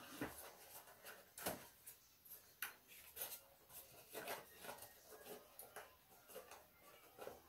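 Faint rustling and scattered light knocks of packaging being handled: the kit's trays, packets and box being packed back up.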